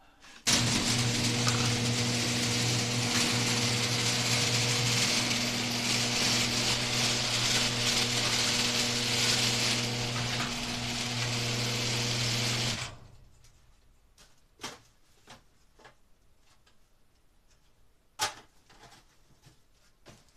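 Electric garage door opener running steadily with a motor hum, stopping abruptly after about twelve seconds as the door reaches its limit. A few faint knocks follow.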